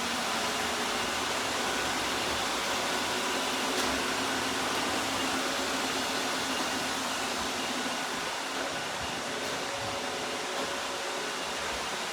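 An iRobot robot vacuum running, giving a steady whirring noise with a faint, even hum in it.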